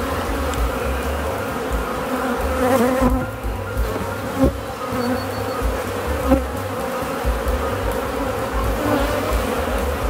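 Honeybees buzzing in a steady drone from an opened hive and a bee-covered brood frame, with a couple of brief light knocks about four and a half and six seconds in.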